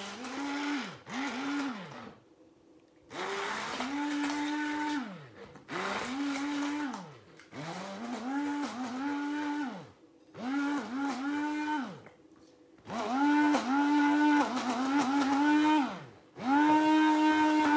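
Hand-held immersion blender whirring in a bowl of lemon cream and mascarpone to emulsify it. It is switched on and off in repeated bursts of about one to two seconds, and its motor whine rises as it spins up and falls away as it stops each time.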